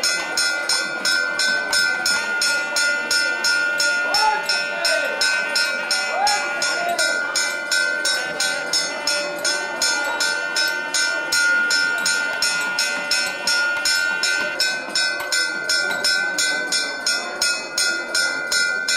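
Metal percussion struck in a fast, even beat, about four strokes a second, over a steady high ringing tone, with crowd voices faintly behind.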